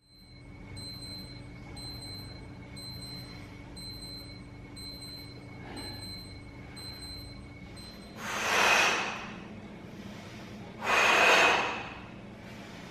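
A man breathing out hard three times, each a loud rushing exhale of about a second, coming roughly every three seconds with the effort of a core exercise. Before the breaths there is only a low hum with a faint high chime-like tick repeating a little faster than once a second.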